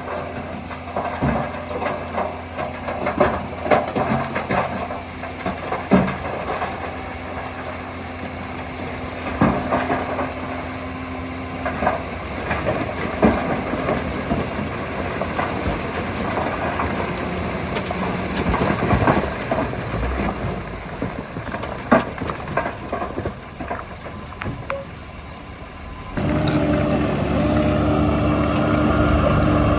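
Diesel engine of heavy earthmoving machinery running, with scattered metallic clanks and knocks. Near the end the sound abruptly gets louder and steadier.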